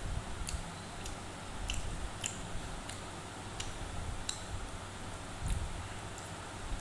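A person chewing food: scattered small clicks and smacks, with a soft low thump about five and a half seconds in.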